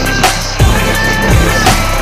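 Electronic dance music with a synth melody over a deep, regular bass-drum beat.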